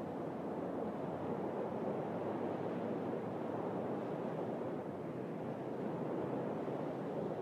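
Sea surf washing on a shore: a steady rushing noise with only slight swells in level.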